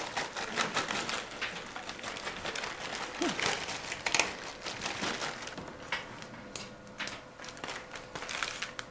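Plastic bag of frozen green beans crinkling and rustling as the beans are shaken out into a casserole dish, with irregular small clicks and crackles.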